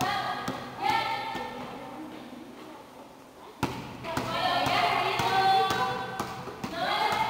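A basketball bouncing irregularly on a concrete floor as a small child dribbles it, with the sharpest bounce a little past the middle. High children's voices ring out about a second in and again from about four seconds on.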